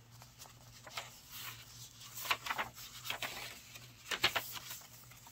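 Paper pages of a handmade journal being handled and turned: a few short rustles, the loudest about two and four seconds in.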